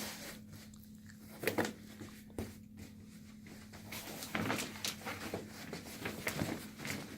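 Parts of a portable massage chair being handled: a series of irregular knocks and clatters with rustling in between, as the cushions and face cradle are taken off and fitted together. A faint steady hum sits underneath.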